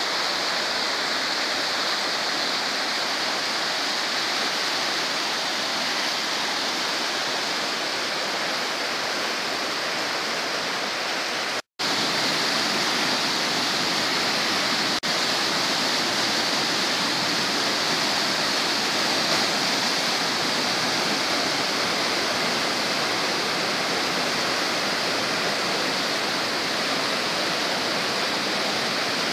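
River in flood: fast, muddy whitewater rushing in rapids, a steady loud rush of water. The sound cuts out for an instant about twelve seconds in.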